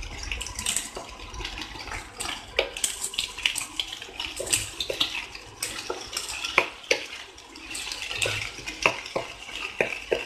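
Wooden spatula scraping and knocking irregularly against a nonstick frying pan as scrambled eggs are broken up and stirred, with a light sizzle of the eggs frying in hot oil underneath.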